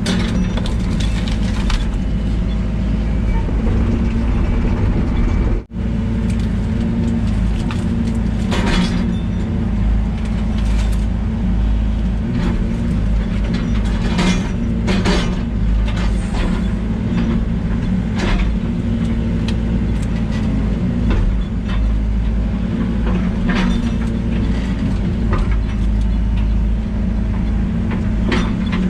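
Excavator's diesel engine running steadily under work, with scattered sharp cracks and knocks over it.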